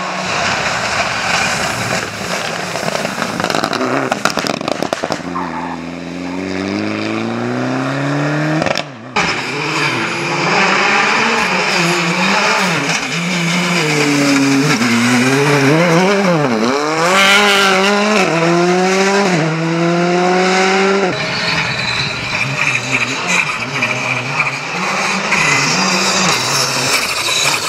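R5 rally cars, among them a Hyundai i20 and a Skoda Fabia, driven flat out on a stage: their turbocharged four-cylinder engines rev up and drop again and again through gear changes and lifts, over a constant hiss of tyres and thrown gravel. Several passes follow one another, with a brief break about nine seconds in.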